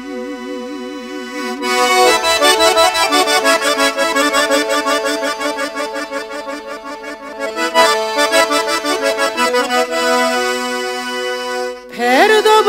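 Accordion playing an instrumental break in a folk tune: quick runs of repeated notes over held chords. A held sung note with vibrato fades out in the first two seconds, and singing comes back near the end.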